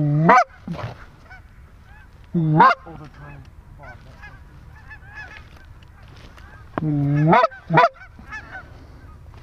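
Hand-blown goose calls honking loudly in short bursts: a pair at the start, one about two and a half seconds in and another pair around seven seconds, each note sweeping up in pitch. Behind them a flock of geese keeps up a faint, steady chatter of honks.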